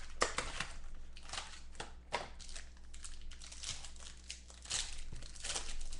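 Trading cards and their packaging being handled: a string of crinkles, rustles and light clicks.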